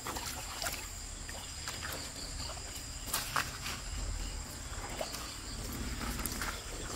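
Night insects, such as crickets, trilling steadily at a high pitch, with a few short clicks and knocks and a low rumble underneath.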